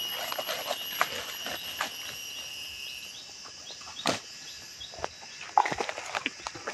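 Scattered clicks and rustles of someone walking through undergrowth, over steady high insect calls, one of which stops about three seconds in.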